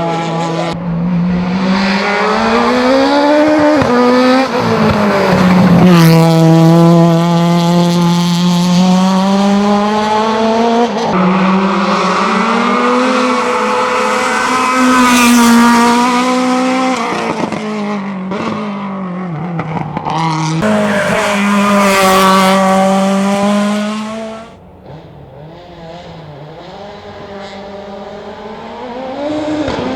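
Renault Clio prototype race car engine, driven hard through the gears, its pitch climbing and dropping several times with the shifts and the braking. About 25 seconds in it drops sharply quieter, then grows louder again near the end.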